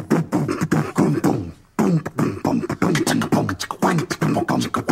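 Title-sequence theme done with the voice: a fast beatboxed vocal rhythm of short, falling pitched syllables, cutting out briefly about a second and a half in, then carrying on.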